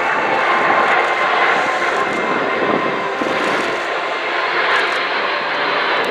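Boeing C-17 Globemaster III's four Pratt & Whitney turbofan engines running in flight: a steady, loud jet roar with a faint whine on top.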